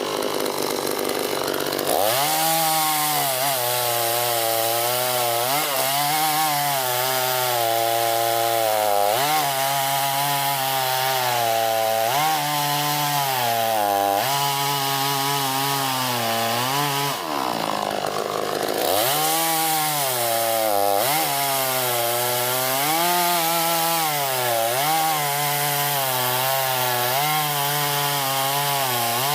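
Chainsaw cutting through wood, its motor note sagging and recovering every second or two as the chain bites into the cut, with a brief letup about two-thirds of the way through.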